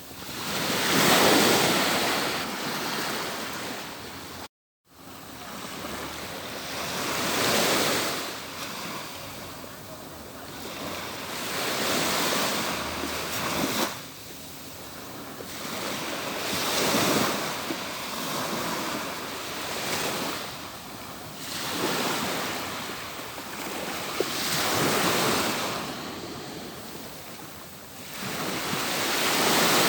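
Atlantic surf breaking on a beach, wave after wave, each swelling up and washing out over about four to five seconds. The sound drops out completely for a split second about four and a half seconds in.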